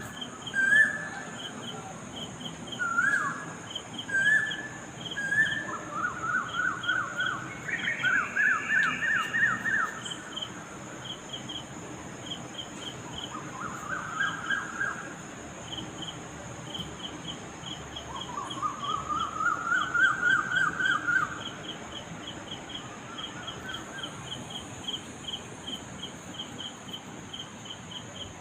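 Several birds calling. One gives short chirps, then loud rattling trills every few seconds, some rising in pitch. Another repeats quick paired chirps at a steady rate throughout, over a steady high hiss.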